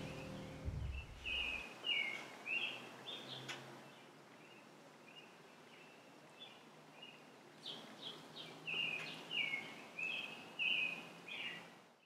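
A songbird singing in a faint outdoor hiss: short chirping notes, about two or three a second, in two runs of song, one near the start and one from about eight seconds in. The last of the piano music fades out in the first second.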